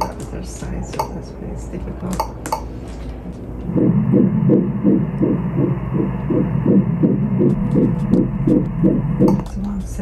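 Fetal heartbeat at 12 weeks, played through a GE Voluson ultrasound machine's pulsed-wave Doppler: a fast, even, rhythmic pulse of about three beats a second, measured on screen at 171 bpm. It starts about four seconds in and stops just before the end, after a few light clicks.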